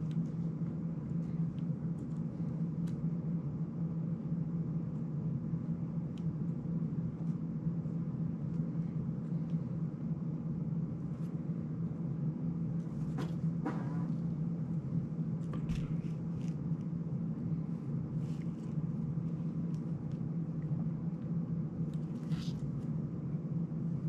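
Steady low hum, with a few faint clicks and rattles from a drone frame and its small parts being handled, about halfway through and again near the end.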